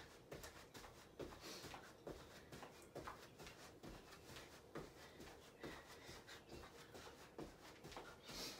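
Faint, regular soft thuds about twice a second: sneakers landing on a carpeted floor during jumping jacks.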